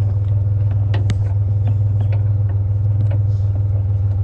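Truck engine idling, a steady low rumble, with a few light clicks and knocks of objects being handled.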